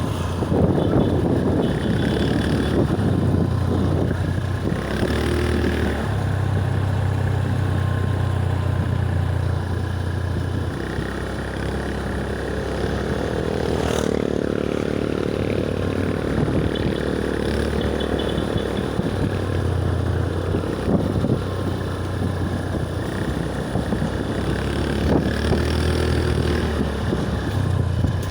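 Vehicle engines on a road, mixed with wind rumbling on the microphone and rising and falling in gusts, as heard while riding along.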